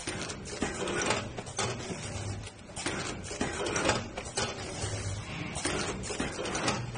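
Automatic vertical powder packing machine with auger filler running through its bagging cycle: repeated sharp mechanical clacks and knocks from its moving jaw assembly over a low hum that comes and goes.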